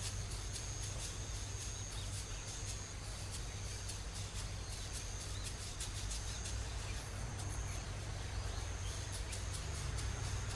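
Outdoor ambience of insects: a thin, high, steady trill that stops and starts several times, with rapid high clicks over a low steady rumble.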